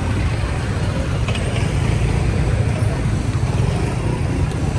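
Steady street traffic noise: a continuous low rumble of passing cars and other motor vehicles.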